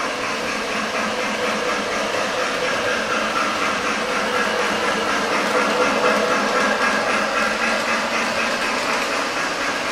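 Lionel O-gauge model trains running on three-rail track. The wheels and motors make a steady rolling noise with a faint hum in it.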